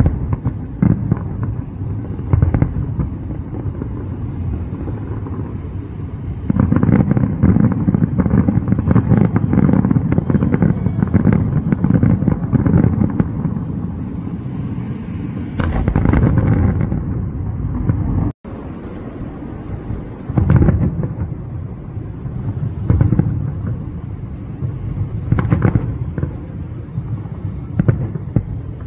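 Aerial fireworks bursting over the city: a dense run of booms and crackling for several seconds, then single heavy bursts every two to three seconds.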